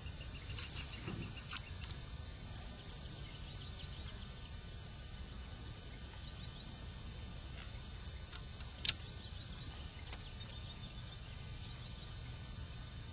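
Outdoor ambience: a steady low rumble of wind or handling noise with faint high chirps scattered throughout, and a single sharp click about nine seconds in.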